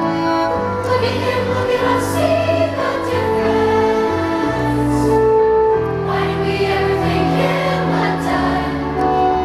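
A group of voices singing a musical-theatre reprise over instrumental accompaniment, in long held notes that change about once a second.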